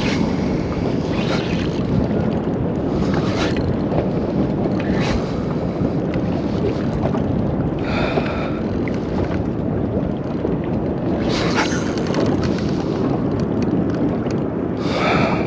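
Steady wind noise buffeting the microphone on an open boat over water, with short, higher, scratchy bursts every few seconds.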